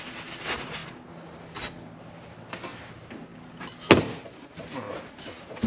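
Ductboard being cut and handled: a series of short scrapes and rustles, with one sharp knock about four seconds in.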